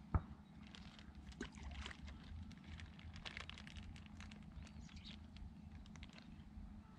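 Pieces of fish bait being thrown out with a hand-held baiting spoon: a single dull thud right at the start, then faint scattered ticks and patters over a low wind rumble.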